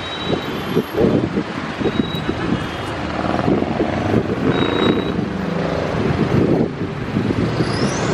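Road traffic on a congested multi-lane road: many cars, vans and minibuses in a queue, a steady rumble of engines and tyres. A short rising high squeak near the end.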